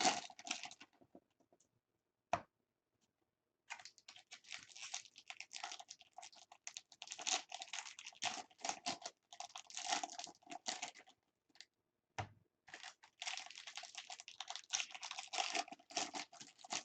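Baseball trading cards and their foil pack wrappers being handled: quick runs of crisp clicks and rustling as cards are flicked through and the packs crinkle, with a pause of a few seconds early on and a brief one later.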